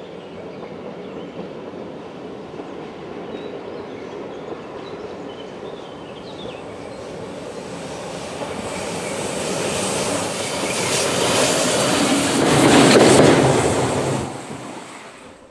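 ÖBB class 1142 electric locomotive running light, its wheels on the rails growing steadily louder as it approaches, passing close about thirteen seconds in with a high wheel squeal, then quickly fading.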